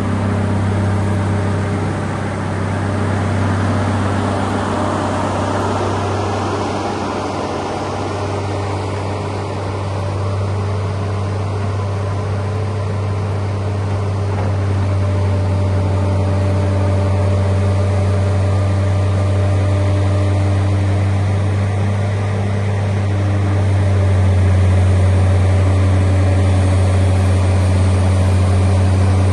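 Cummins diesel engine of a Hitachi EX1100 hydraulic excavator running steadily with a low, even drone, growing a little louder near the end.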